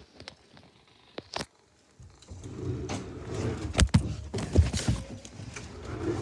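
Handling noise from a handheld camera being carried and moved about: after a near-quiet start, low rumbling and rustling set in about two seconds in, with a few sharp knocks and bumps around the middle.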